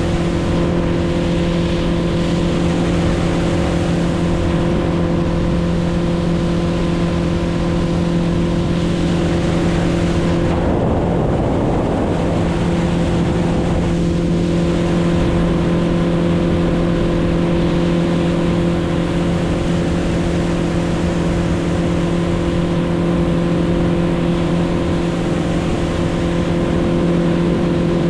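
A boat motor running at a steady pitch, a continuous drone over rushing water and wind noise, with a brief louder rush of noise about eleven seconds in.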